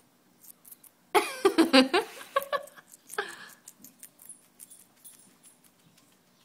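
Guinea pig chewing a celery stalk, with many small crisp crunches. About a second in, a louder voice-like call of about two seconds rises over it.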